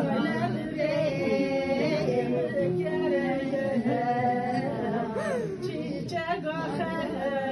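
Unaccompanied singing of a funeral lament: a voice holding long notes that bend up and down in pitch.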